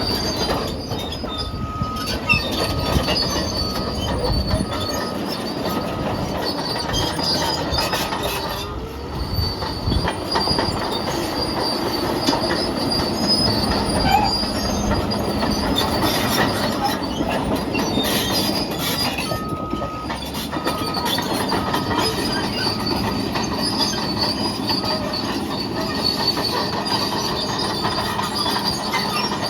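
Caterpillar D6N LGP crawler bulldozer running under load, its steel tracks clanking and squealing as it pushes rock and dirt. Its backup alarm beeps in two short stretches, about a second in and again about two-thirds of the way through.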